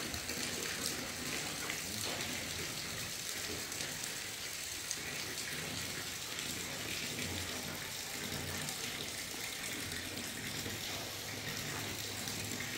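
Steady rain falling on a corrugated metal roof: an even hiss scattered with light drop ticks.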